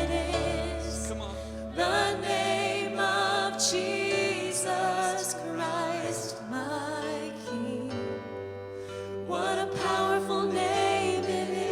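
Live church worship band playing a slow, soft worship song: several vocalists singing long held lines with vibrato over piano, guitar and held bass notes.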